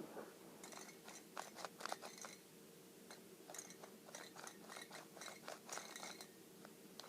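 Faint, irregular clicking and scraping of a new speed cube's plastic layers being turned by hand, with a low steady hum underneath.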